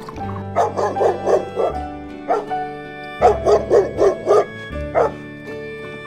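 A dog barking: two quick runs of about six barks each, each run followed by a single bark.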